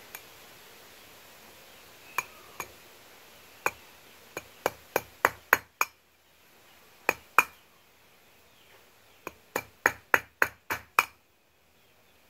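Hammer blows on a steel punch driving a pin out of a motorcycle drive chain link to shorten the chain: sharp metallic clinks that ring briefly, some single and spaced, then two quick runs of about three strikes a second.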